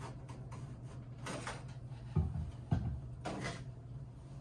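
Burner assembly of a Lochinvar Noble gas boiler being pulled out of its housing by hand: metal sliding and scraping, with two dull knocks around the middle.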